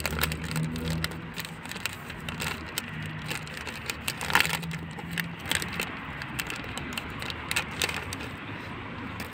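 Plastic wrapper of a stick ice cream bar crinkling and tearing as it is peeled open by hand: a run of irregular sharp crackles, loudest about halfway through.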